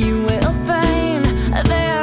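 A pop song: a singing voice over instruments and a steady beat.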